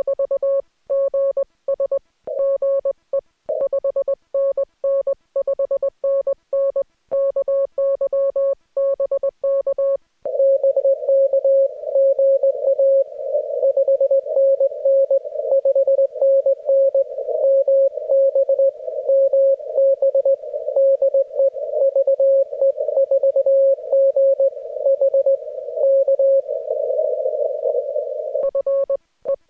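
Morse code (CW) from an amateur radio transceiver: a single mid-pitched beep keyed in dots and dashes. For the first third it is a clean tone with silent gaps between characters, like the sending station's own sidetone. After that the keying is heard over steady band hiss, as a signal copied through the receiver, until the clean keyed tone returns near the end.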